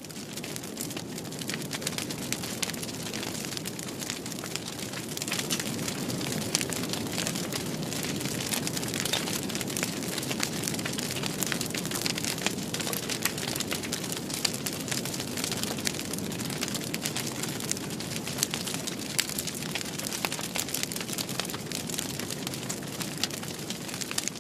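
Fire crackling: a steady low rush of burning with many irregular sharp pops and snaps throughout.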